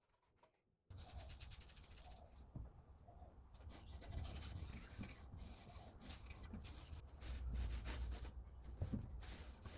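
Cloth rubbing and wiping along the lathe to clear off dust and dirt, a run of uneven rubbing strokes that starts about a second in.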